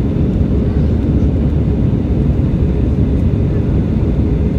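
Airliner cabin noise in cruise: a steady low rumble of jet engines and airflow heard from a window seat beside the wing.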